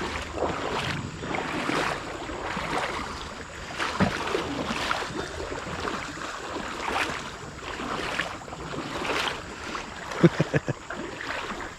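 Footsteps wading through shallow creek water, a splash about every second in a walking rhythm, with a few short knocks near the end.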